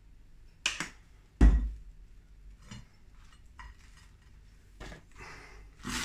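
Handling sounds while making a sandwich: a couple of sharp clicks from the ketchup squeeze bottle, then a heavy thump about a second and a half in as the bottle is set down on the worktop, followed by faint taps of toast and fingers on the plate as the sandwich is pressed together.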